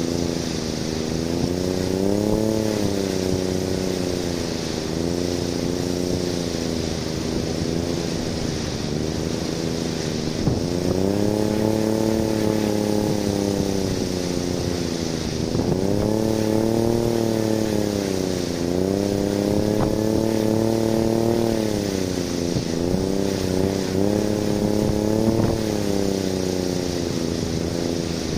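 Small 3D-printed wind turbine spinning fast in storm-force wind, a motor-like whirring hum whose pitch rises and falls every few seconds as gusts speed the rotor up and slow it down. Steady wind noise runs underneath.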